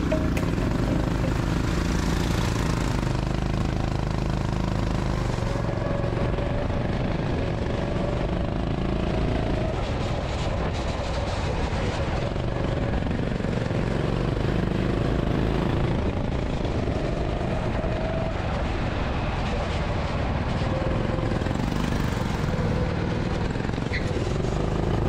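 Go-kart engine running hard through a lap, heard from the driver's seat, its pitch wavering as the kart speeds up and slows through the corners.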